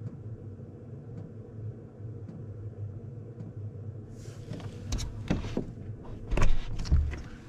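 Chinese-made diesel heater running with its fan on high: a steady low hum with faint ticks about once a second. In the second half a rustle and a run of knocks and clunks come in, the loudest a heavy thump about six and a half seconds in.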